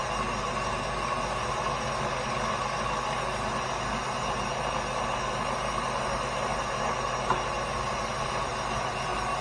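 KitchenAid stand mixer running steadily on speed 6 with its meat grinder attachment, the auger forcing chunks of lean deer roast through the grinding blade and plate. One short tick about seven seconds in.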